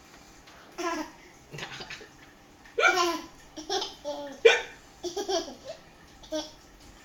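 A man's fake hiccups, short sharp vocal jolts, answered by a young child's bursts of laughter.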